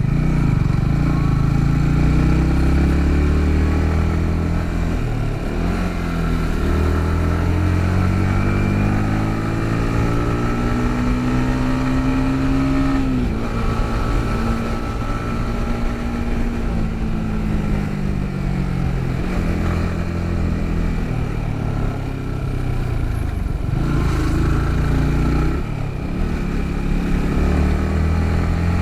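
Yamaha MT-15's single-cylinder engine under way, its pitch rising and falling with the throttle. The revs climb steadily, then drop abruptly about thirteen seconds in and ease down, with a steady noise of rain and road underneath.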